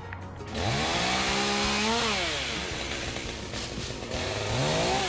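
Two-stroke chainsaw revving up about half a second in, held at full speed for about a second and a half, dropping back, then revving up again near the end.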